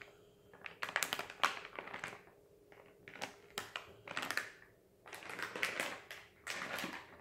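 Metallic-foil blind-bag packets crinkling as a hand presses and squeezes them, in several short bursts with brief pauses between.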